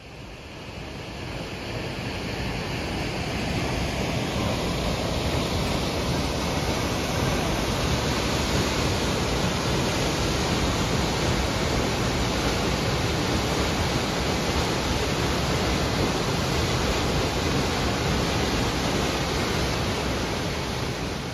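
Waterfall plunging through a rock gorge into a pool: a steady rush of falling water, fading in over the first couple of seconds and fading out at the end.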